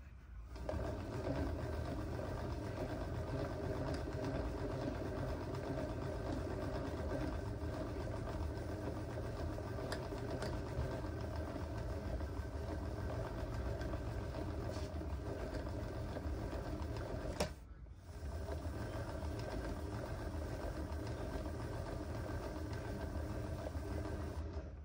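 A small motor running steadily. It cuts out briefly, just after a click, about seventeen seconds in, then runs again.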